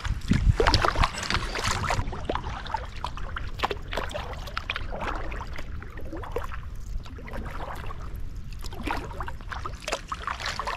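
Kayak paddling on calm water: the paddle blades dip and pull, with water dripping and trickling off them in many small sharp drips and splashes.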